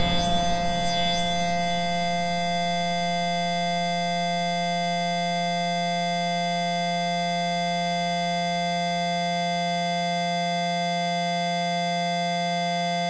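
Software synthesizer sustaining one steady, unchanging tone rich in overtones.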